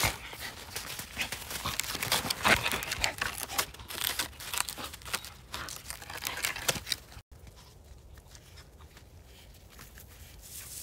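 A miniature bull terrier gnawing and tearing at a thick log, with bark and wood crunching and splintering in quick, irregular cracks. About seven seconds in it cuts off suddenly to a much quieter background with faint crunches of paws in snow.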